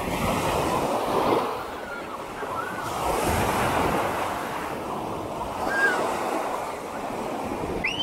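Ocean surf breaking and washing up the beach, the rush swelling about a second in and again around three to four seconds, with some wind on the microphone.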